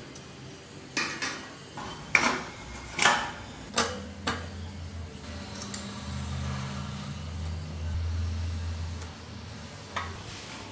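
Steel motorcycle parts clinking and clanking as a rear axle is pushed through the wheel hub, sprocket and swingarm: about six sharp metallic knocks in the first few seconds, then a low steady hum, and one more clink near the end as a spanner goes onto the axle nut.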